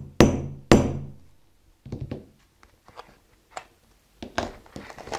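A hammer strikes a steel setting punch twice, about half a second apart, each blow ringing briefly: a metal snap button being clinched through a nylon strap. A softer knock follows about two seconds in, then light handling noise.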